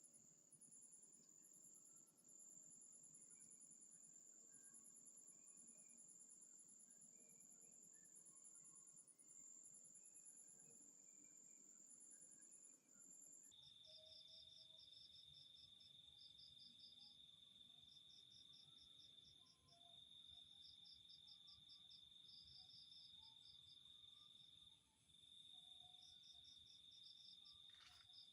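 Faint insect chorus: a steady high-pitched trill with rapid pulsed chirps above it. About halfway through it cuts abruptly to a lower-pitched steady trill with its own pulsed chirps.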